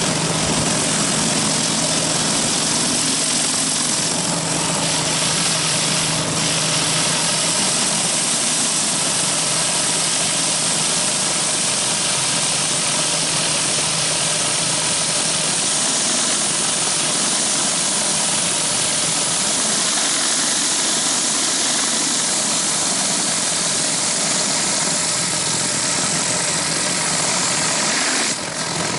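Pressure washer running steadily while the 14-inch B.E. Whirlaway surface cleaner blasts water onto the concrete, a loud, even hiss of spray over the drone of the pump's engine. The sound briefly dips near the end.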